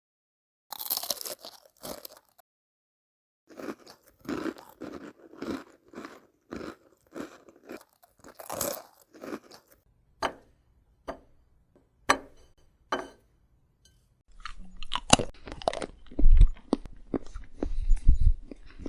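Close-miked chewing and crunching of food, in a run of short bites and chews with silent gaps between. Sharp single clicks fall in the middle, and louder clicks with low thuds come in the last few seconds.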